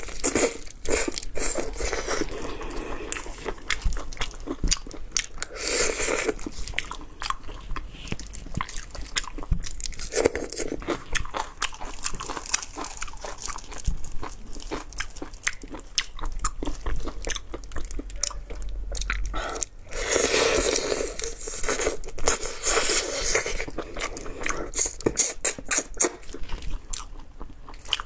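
Close-miked eating of raw spicy marinated shrimp: many sharp crunches and bites into the shells with wet chewing, broken several times by longer wet sucking sounds.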